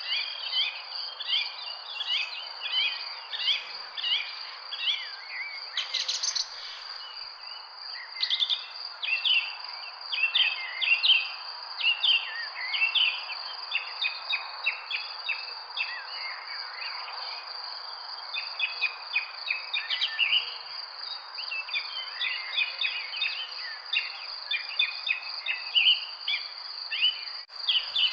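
Many birds chirping in quick, short calls over a steady high-pitched insect drone.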